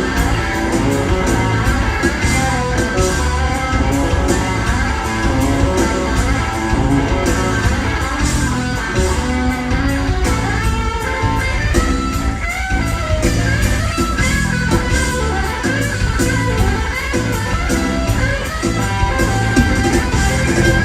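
Live rock band playing an instrumental passage led by electric guitar, with drums keeping a steady beat.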